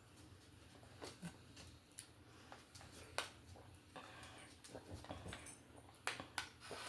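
Faint room tone with a low steady hum and a few scattered small clicks and knocks.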